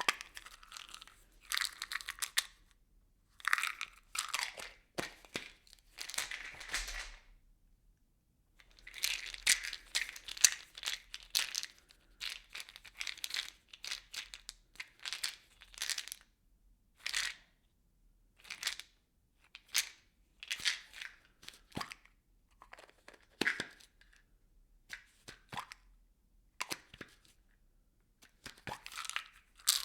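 Small objects rattling and shaken inside a plastic bottle, in irregular bursts of clattering and crinkling plastic with short pauses between shakes.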